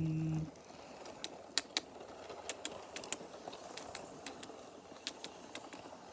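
A steady low hum cuts off abruptly about half a second in. After that come scattered, irregular sharp clicks and crackles over a faint hiss.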